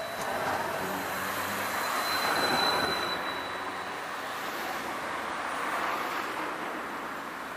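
Tram passing close by on curved track, its wheels squealing in a thin steady high whine that stops about three seconds in. The rolling noise swells, then slowly fades as the tram moves away.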